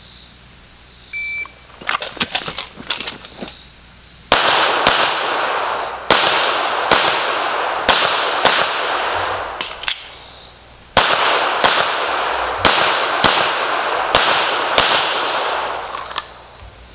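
A shot timer beeps once, followed by a few quick running footsteps. Then a Sig Sauer P320 Legion 9mm pistol fires two rapid strings of shots at steel targets, each shot with a ringing tail, separated by a short pause.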